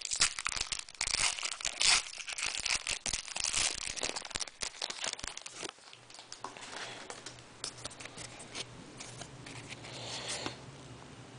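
Crinkling and tearing of a Bowman Draft Picks & Stars basketball card pack's foil wrapper as it is opened and crumpled. The rustling is busiest in the first half and thins to light crinkles and clicks after about six seconds.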